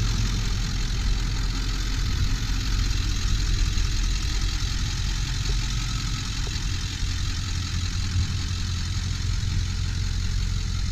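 Ford 7.3 L Power Stroke V8 turbo diesel idling steadily.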